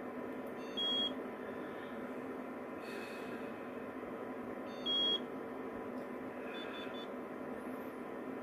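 Inspire sleep apnea therapy remote beeping as its buttons are pressed: two short, high beeps about four seconds apart, then a fainter quick run of three pips near the end, over a steady background hum.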